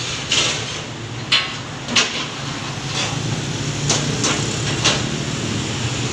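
Sharp metal clanks and knocks, about seven at irregular intervals, as a portable concrete mixer and its steel loading ramps are handled against a pickup truck's bed, over a steady low rumble of street traffic.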